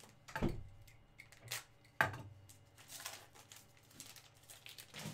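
Handling of 2019 Donruss baseball card packs by gloved hands: two thumps about half a second and two seconds in, with short crinkling rustles of a pack's wrapper being torn open in between and after.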